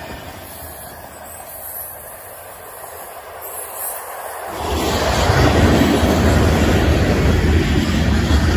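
Cars of a passing freight train, covered hoppers and boxcars, rolling by on steel rails: a steady rumble of wheels on track that grows much louder about halfway through.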